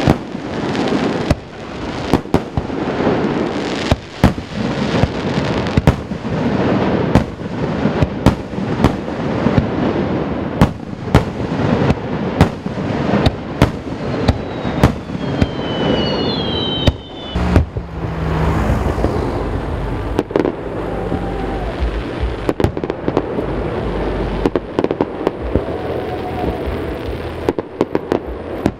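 Aerial fireworks shells bursting in quick succession, many sharp bangs over continuous crackling, echoing off the surrounding mountains. A deep rumble runs underneath in the second half.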